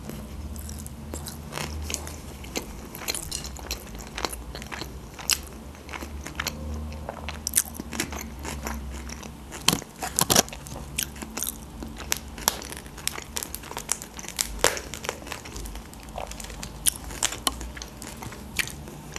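Close-miked chewing and mouth clicks, then the shell of a whole cooked lobster cracking and crunching as it is broken apart by hand, with sharp snaps, the loudest about ten seconds in.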